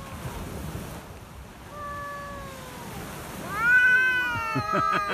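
Rival cats in a standoff, yowling at each other in long drawn-out caterwauls. A moderate howl about two seconds in, then a louder one rising sharply a second later, with a second cat's howl overlapping it near the end.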